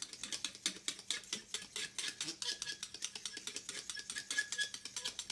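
X-Acto knife blade scraped repeatedly over a Samsung Galaxy tablet's glass screen as a scratch test, a quick, steady run of small scratchy clicks.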